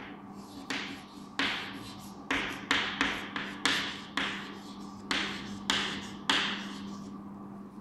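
Chalk writing on a chalkboard: about ten sharp taps and short scrapes, irregularly spaced, as letters are written. A steady low hum runs underneath.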